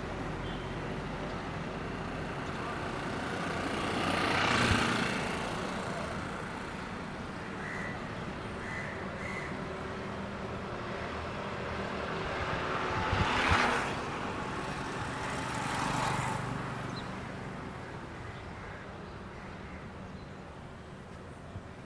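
Road traffic: three vehicles pass by one after another, each swelling up and fading away, over a steady background hum.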